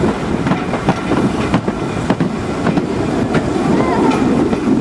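Steam train running, heard from a carriage window: a steady rumble with the carriage wheels clicking and rattling over the rail joints.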